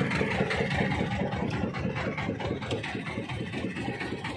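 Small fishing boat's engine running steadily with a fast, even beat.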